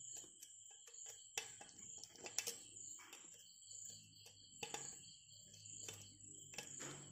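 Faint scattered clicks and scrapes of a knife tip turning the handle screws inside a stainless-steel mixer-grinder jar, tightening them down.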